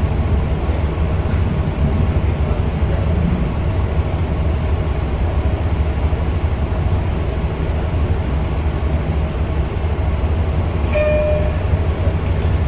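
Steady low rumble heard from inside a Long Island Rail Road train car. Near the end there is a brief pitched tone.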